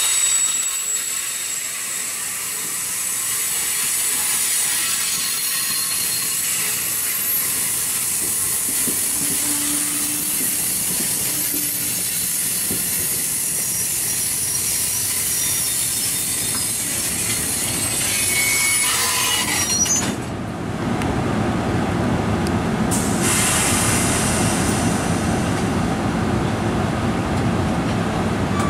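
NJ Transit Multilevel passenger coaches rolling slowly past on a station track, wheels and brakes squealing high as the train slows. About twenty seconds in the squealing stops and a steadier, lower rushing noise takes over as the train comes to a stand.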